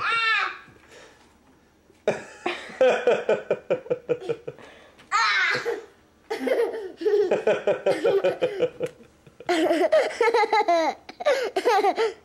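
Young child laughing hard in repeated bouts of quick giggles, with a high squeal about five seconds in.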